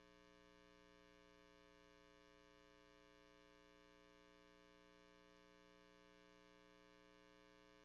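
Near silence, with a faint steady electrical hum made of several constant tones.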